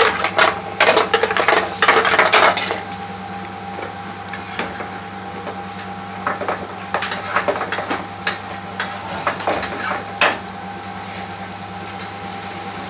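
A metal spoon clattering and scraping against a metal pan as chicken curry is stirred and tossed vigorously for the first two to three seconds, then a few lighter, scattered knocks of the spoon on the pan, one louder one near the end. A steady low hum runs underneath.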